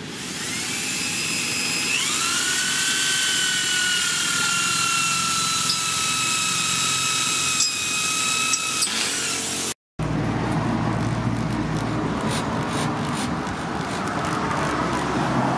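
Corded electric hand drill running, drilling down into the end of a wooden axe handle seated in the axe head's eye. The motor whine jumps up in pitch about two seconds in and then sags slowly as the bit works. After an abrupt break the drill runs on with a rougher, lower sound and no clear whine.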